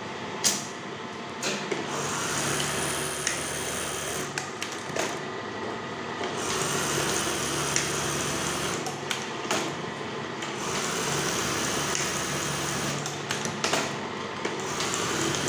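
Brother 814 industrial buttonhole sewing machine running, a smooth, quiet stitching sound with a lower motor tone that comes and goes in stretches of a few seconds, and several sharp clicks. It runs at a modest speed because it is fitted with the number-46 gear, which gives many stitches per buttonhole.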